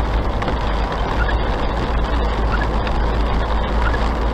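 Steady road and engine noise inside a car's cabin, driving at about 50 km/h, with a strong low rumble. A faint short chirp repeats about every second and a quarter.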